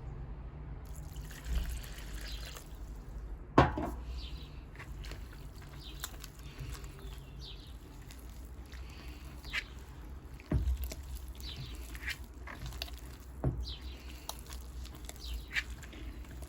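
Hands kneading a soft, wet yeast dough in a bowl as water is worked in: sticky squelching and dabbing, with a few sharper knocks against the bowl, the loudest about three and a half seconds in.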